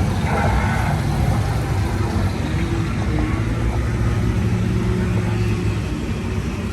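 Steady low rumble and hum of machinery aboard a river-rapids raft ride, with a broad rushing noise over it.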